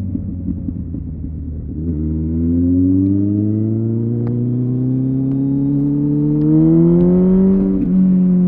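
Kawasaki ZZR 1400 inline-four with a Delkevic exhaust accelerating under load. After a low rumble, about two seconds in, the engine note climbs steadily through the revs. Near the end it breaks and drops with an upshift, then pulls again.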